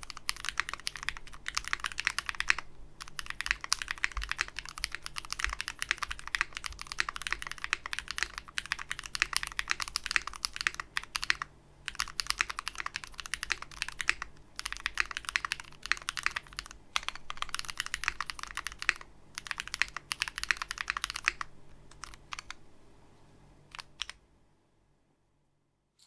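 Typing on a KBD8X MKII custom mechanical keyboard with a brass plate, GMK keycaps and lubed switches built from vintage Cherry MX Black housings with NovelKeys Cream stems. Keystrokes come in continuous runs broken by brief pauses, then thin to a few last keys and stop about two seconds before the end.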